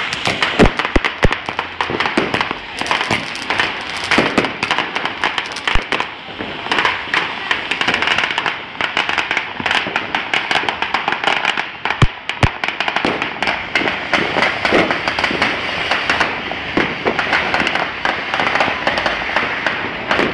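Firecrackers going off in a rapid, irregular crackle of bangs, with a few louder single bangs among them.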